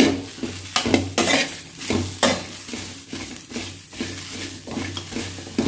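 Spatula scraping and stirring chopped okra in a dry pan over low heat, in quick repeated strokes two or three a second: the okra is being dry-roasted before any oil goes in. A low steady hum runs underneath.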